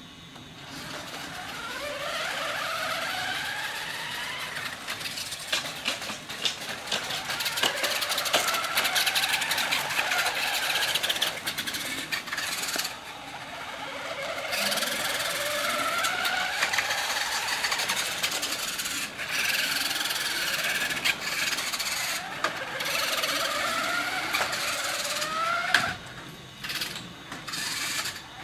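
Electric RC trucks' motors and gears whining, the pitch climbing as they accelerate and then breaking off, several times over, with clicking and rattling from the wheels running over flagstones.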